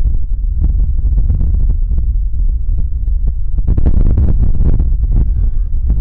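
Strong wind buffeting the microphone: a heavy, uneven low rumble in gusts, growing stronger a little past halfway.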